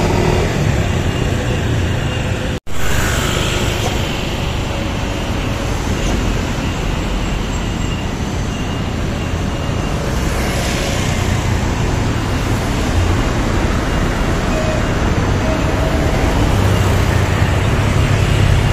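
Bus engine running with steady road and traffic noise. The sound cuts out completely for a moment about two and a half seconds in, then carries on.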